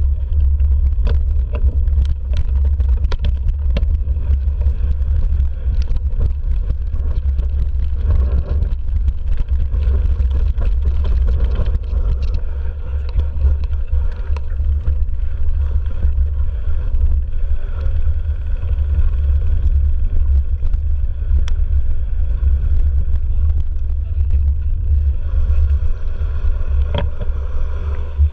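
Mountain bike rolling over a gravel and dirt trail, heard through a handlebar-mounted camera's microphone as a heavy, steady low rumble of wind and trail vibration, with scattered knocks and rattles from bumps.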